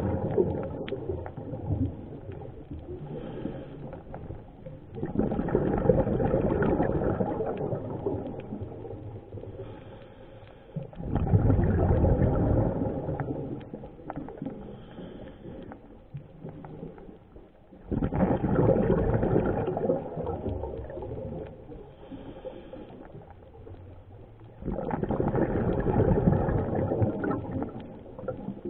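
Scuba diver breathing through a regulator underwater: exhaled bubbles gurgle out in bursts of two to three seconds, about every six to seven seconds, five times over, with quieter stretches between breaths.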